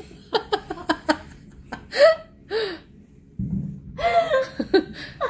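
People laughing and gasping in short bursts, with brief voiced exclamations between them.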